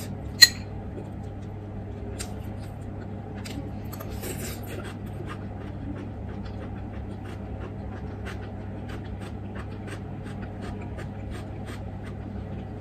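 Eating sounds: chewing and small mouth clicks over a steady low hum, with one sharp clink of a metal spoon about half a second in.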